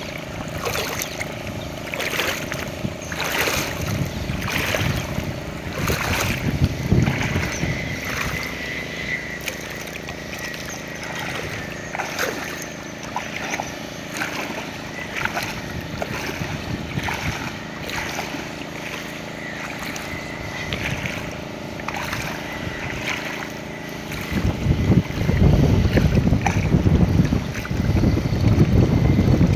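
Muddy lake water sloshing and splashing in short bursts as a cast net is hauled in by hand through the shallows, over a faint steady hum. Near the end wind buffets the microphone with a loud low rumble.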